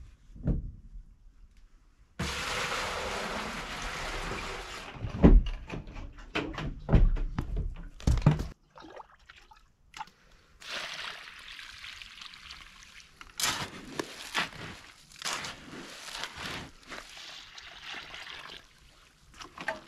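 Warm water poured into a hole of quick-setting concrete mix for about three seconds, then sloshing and knocks as the wet mix is worked, with further stretches of pouring and sloshing later on.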